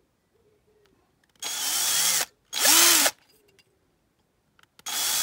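Small electric drill run in three short bursts, its motor spinning up and winding down each time, the last burst the longest. It is drilling out a plastic clip through the underside of a die-cast model car to free the part it holds.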